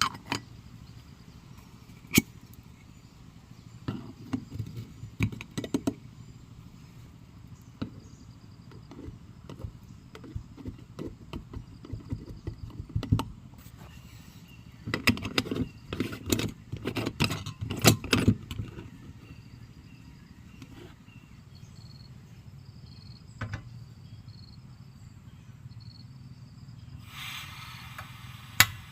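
Irregular sharp clicks and knocks, with bursts of rapid rattling clatter about four seconds in and again around fifteen to eighteen seconds, over a steady low hum.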